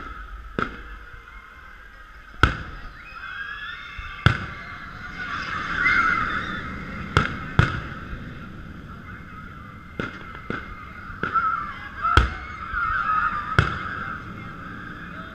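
Aerial fireworks shells bursting: about nine sharp bangs at irregular intervals, some in quick pairs.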